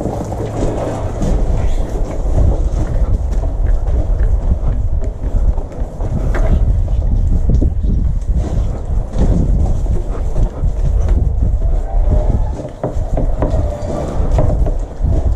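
Gusty low rumble of wind on the microphone, over the scrubbing of a water-fed pole brush on a uPVC window frame and sill.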